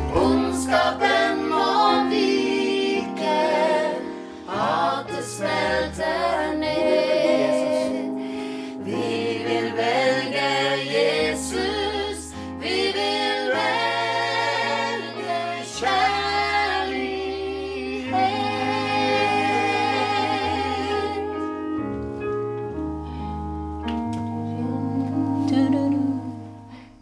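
A small group of men and women singing together to the accompaniment of a digital piano keyboard, holding notes with vibrato.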